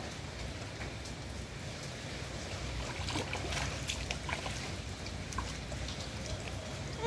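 Steady wash of flowing floodwater with light rain still falling, scattered faint drips and ticks in the middle.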